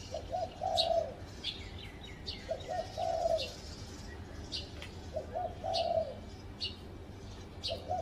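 Spotted dove cooing: a repeated phrase of two short coos followed by a longer, falling coo, about every two and a half seconds. Short high chirps from other small birds come in between.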